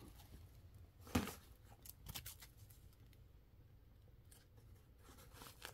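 Handling of a nylon pouch and a hook-and-loop patch: one sharp tap about a second in, then a few faint clicks and rustles.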